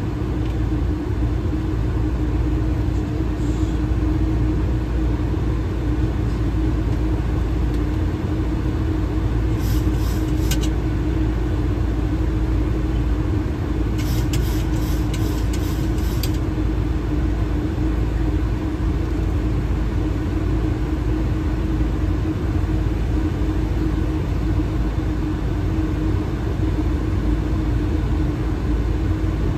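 Steady flight-deck noise of a Boeing 737-800 on approach: a constant rush of air with a low steady hum underneath. A few faint high ticks come about ten seconds in and again a few seconds later.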